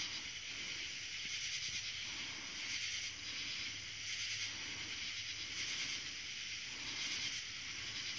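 Night insects (a cricket or katydid chorus) making a steady high buzz that swells and fades about once a second.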